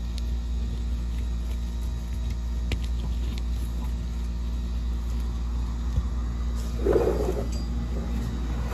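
Steady low rumble, like a motor running, with a few faint clicks and a brief louder scrape-like noise about seven seconds in.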